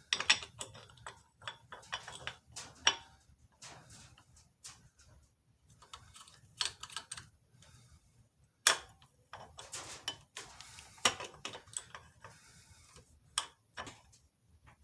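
Irregular metallic clicks and clinks as the parts of a pilot bearing puller are worked into the engine's crankshaft pilot bearing, with a few sharper knocks along the way.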